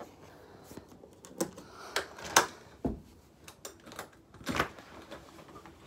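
Scattered clicks and knocks, about half a dozen spread unevenly: handling noise from a phone being carried and shifted in the hand.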